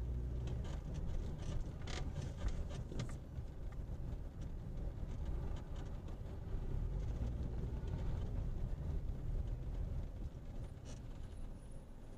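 Car driving on the road, a steady low rumble of engine and road noise as heard by a dashcam in the car, with a few light clicks or rattles in the first three seconds.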